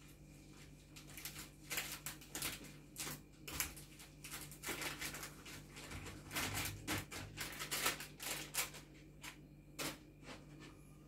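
Dried herbs rustling and crackling as they are shaken from a paper packet into a large glass jar: a quick run of small, crisp rustles that thins out near the end.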